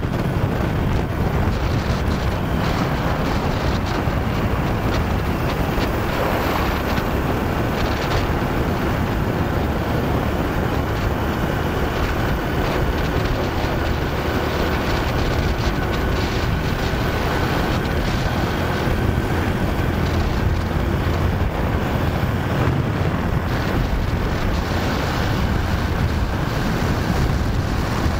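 Wind rushing over the microphone of a camera on a moving motorcycle, with the bike's engine and tyre noise running steadily underneath.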